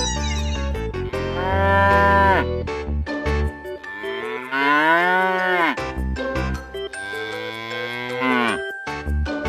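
Cow mooing three times over children's background music, each long call bending up in pitch and then falling away at the end.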